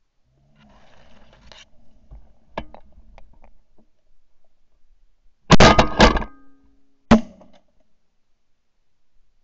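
Shotgun volley: two blasts about half a second apart near the middle, then a third about a second later. Quieter rustling and a sharp click come before them.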